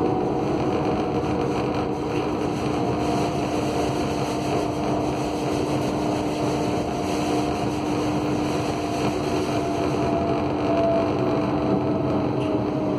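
Kassel tram running: a steady rumble with a constant hum and a fainter whine that slowly falls in pitch.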